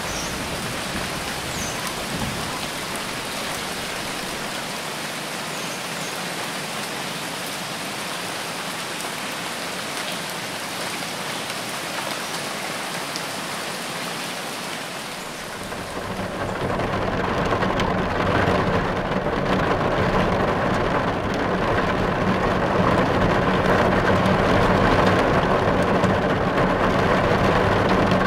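Steady rain falling. About halfway through it changes to a louder, fuller downpour with less hiss.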